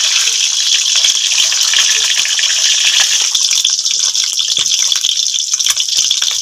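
Peeled boiled eggs frying in hot oil in a steel kadai: a loud, steady sizzle full of small crackles.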